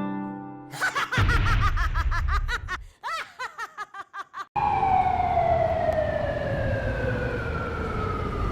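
Police siren: a fast warbling yelp with a low rumble under it, breaking into short choppy pulses, then about halfway through switching to a long wail that falls slowly in pitch.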